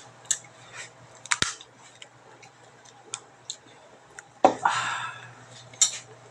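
Scattered clicks and light clinks of utensils and dishes being handled at a table, with a louder brief scrape about four and a half seconds in.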